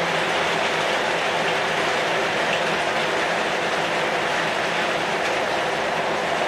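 Heavy rain falling on a corrugated zinc roof and through the leaves of a red-shoot tree, as a dense, steady hiss that does not let up.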